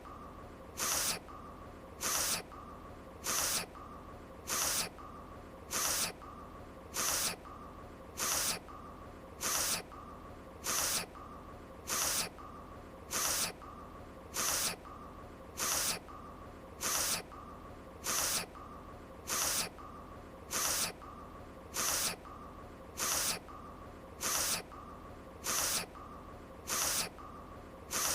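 An anime character's short nasal sniffle, repeated in an unchanging loop about once every 1.2 seconds, over a faint steady background tone.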